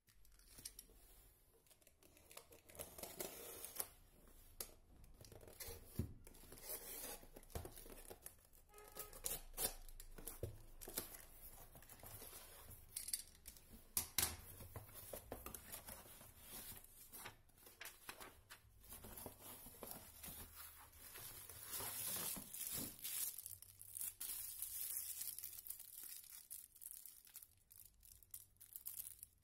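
A cardboard parcel being opened by hand: packing tape and cardboard tearing, with irregular rustles and scrapes. Near the end, plastic wrapping crinkles as the bag is handled.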